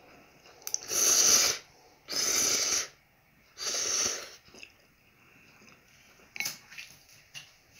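Three loud slurps of spicy jjamppong instant noodles, each about half a second long, then a few faint clicks.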